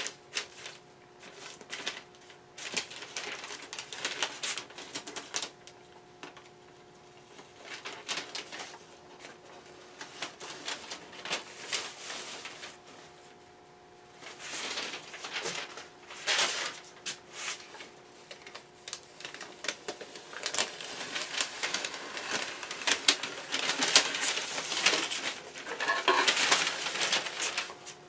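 Masking tape and masking paper being peeled off a freshly spray-painted test panel: irregular crackling and rustling in bursts, with a couple of short pauses and the busiest, loudest peeling near the end.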